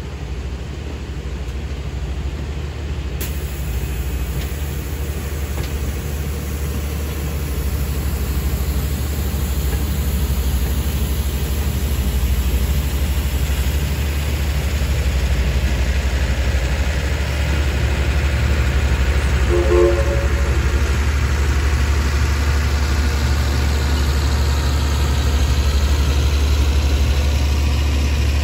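A train running, a steady low rumble that slowly grows louder, with a brief pitched tone about twenty seconds in.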